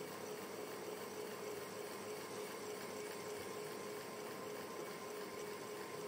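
Ceiling fan running steadily: a quiet, even rush of air with a faint steady hum.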